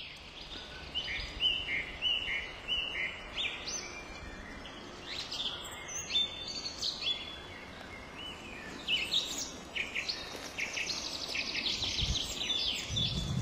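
Songbirds singing: short whistled notes repeated in a series, then quick trills, over a faint steady background hiss. Near the end a low rustling noise begins.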